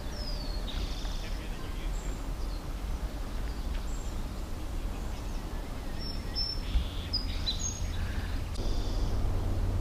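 Scattered short, high-pitched chirps and whistles, some gliding down in pitch, over a steady low rumble; the chirps come closer together in the second half.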